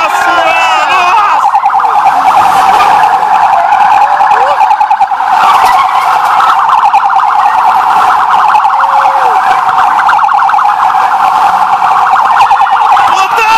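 Several police SUV sirens sounding together: a loud, continuous, fast-warbling yelp, with rising-and-falling wails overlapping near the start and the end.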